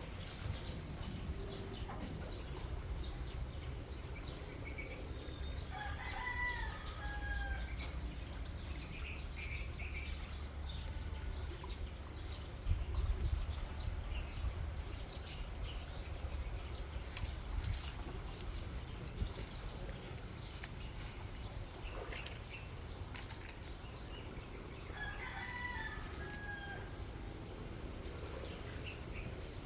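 A rooster crowing twice: one crow about six seconds in and a second near the end, over a steady low rumble.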